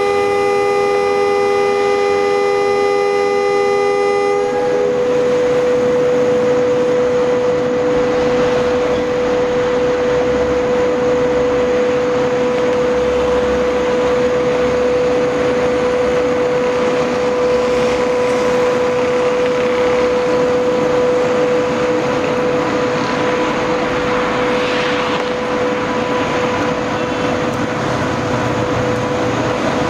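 SS8 electric locomotive's horn sounding one long, steady blast that stops about four seconds in. The train then rolls on with a steady rumble of wheels on rails, under a constant high-pitched tone.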